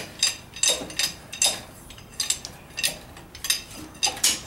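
Hydraulic bottle jack being pumped by its steel handle, lifting the front of a garden tractor: a metallic clink with each stroke in a steady rhythm, about one to two a second.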